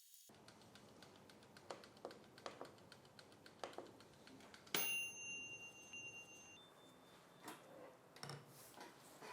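Cuisinart TOA-70 toaster oven's bell dinging once about five seconds in, ringing for under two seconds, signalling that the toast cycle has finished. Faint scattered clicks come before it.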